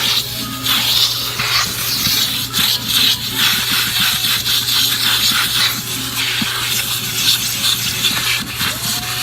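Vacuum cleaner running with a steady motor hum and a loud rush of suction air, its nozzle scraping and rubbing over car carpet and upholstery.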